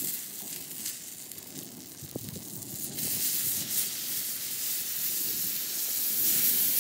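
Stuffed eggplant half sizzling on a hot stone slab over a wood fire, a steady hiss that grows louder about three seconds in.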